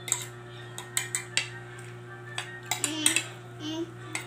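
Spoon and fork clinking and scraping against a plate while eating, a scattering of sharp irregular clicks over a steady low hum.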